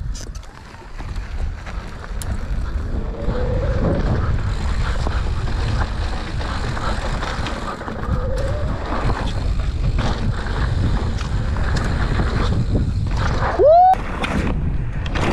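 Mountain bike descending a dirt trail at speed: wind rushing over the microphone and the rumble and rattle of tyres and frame over rough ground. Near the end, a short, loud squeal rises in pitch.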